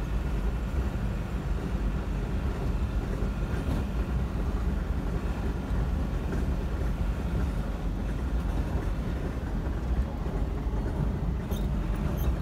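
Inside the cab of a Tata Ace Gold BS6 mini truck at about 60 km/h: its freshly overhauled diesel engine and the road and tyre noise make a steady, even drone.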